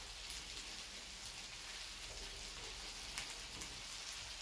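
Meat sizzling on the grill plate of an electric grill and hot pot: a steady hiss with a few small pops and crackles.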